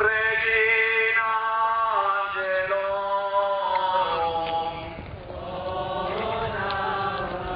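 Voices singing a slow religious hymn in unison, with long held notes that move in steps, and a brief break about five seconds in before the next phrase begins.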